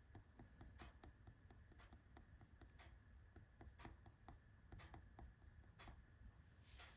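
Faint scratching of a coloured pencil shading on paper in quick repeated strokes, several a second.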